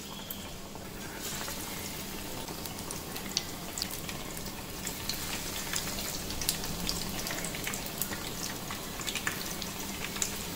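Battered bajji deep-frying in hot oil in a kadai: a steady sizzle with scattered sharp crackles and pops. It grows a little louder about a second in, as more battered pieces go into the oil.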